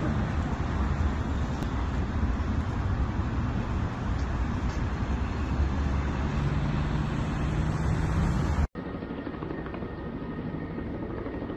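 Loud steady outdoor rumble with a low hum. About nine seconds in it cuts off abruptly to a quieter steady drone from a helicopter flying overhead with a slung water bucket.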